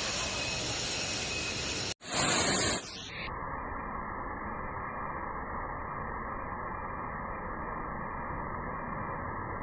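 Steady rushing noise of a waterfall. About two seconds in it cuts off abruptly, a loud burst of hiss follows for under a second, and then a duller, muffled steady rush continues.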